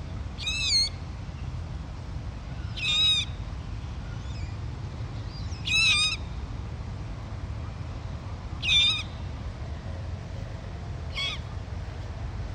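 Dusky moorhen chick giving high squeaky calls, each a short wavering note, repeated about every three seconds, five times, the last one fainter.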